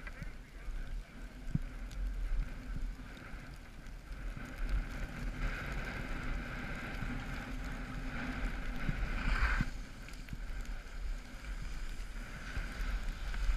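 Wind buffeting the camera microphone over the hiss and scrape of sliding on packed snow. The scraping grows louder for a few seconds and stops abruptly about ten seconds in.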